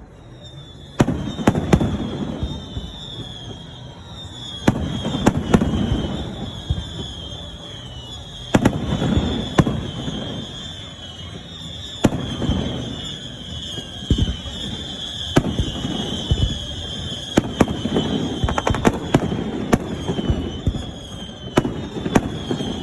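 Aerial fireworks bursting in a display: sharp booming bangs every one to three seconds, each trailing off in a rumble, with a high wavering tone throughout.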